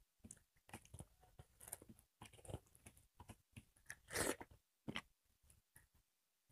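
Faint, irregular chewing and crunching of a meal eaten by hand, with soft mouth clicks and a louder crunchy bite about four seconds in.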